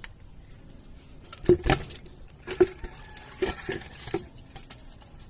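A run of about six clunks and knocks over three seconds, the first two the loudest, as a can is shifted around under the engine to catch draining crankcase oil.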